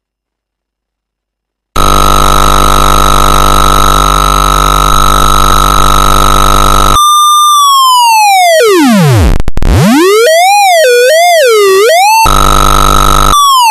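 A 4046 CMOS chip's voltage-controlled oscillator, heard as a synth tone. About two seconds in it starts as a harsh buzzing tone over a low hum, its control input floating and picking up electrical interference. It then turns into a clean square-wave tone that swoops down to a very low pitch, climbs back and wobbles as the control lead is slid along a resistive strip used as a voltage divider, with the buzz returning briefly near the end.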